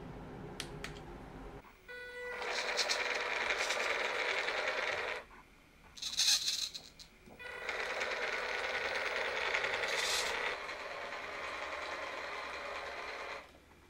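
Small electric motor and gear train of a 3D-printed 1:18 RC Land Rover Defender whining as the car drives in the low range of its two-speed gearbox. It runs in two long spells with a pause about five seconds in.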